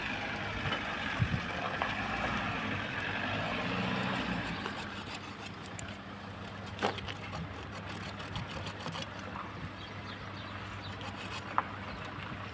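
An engine running steadily at idle with a low even hum, with a couple of sharp knocks partway through.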